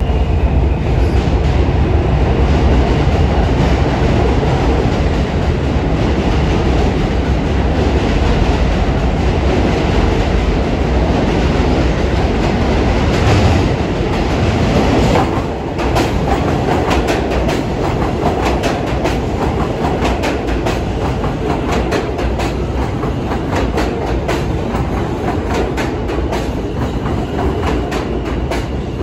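New York City subway train running through the station with a loud, steady rumble. From about halfway through, rapid clicking of the wheels over rail joints joins the rumble.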